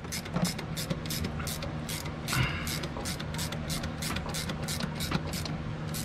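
Ratcheting wrench clicking steadily, about three or four clicks a second, as it turns a valve spring compressor tool that is pressing down a valve spring on a Ford 7.3 Powerstroke diesel cylinder head. A steady low hum runs underneath.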